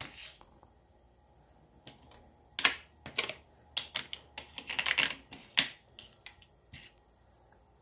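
Hands moving foam toy letters and numbers on a hard surface: a run of irregular light taps and clicks, bunched together in the middle and thinning out near the end.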